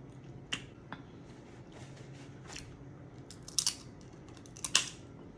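Blue crab shells cracking and snapping as they are picked apart, a handful of short sharp cracks with the loudest ones about three and a half and five seconds in.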